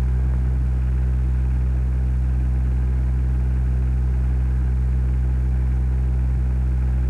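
Steady low electrical hum with even overtones and faint hiss, unchanging throughout: the background noise of an old recording.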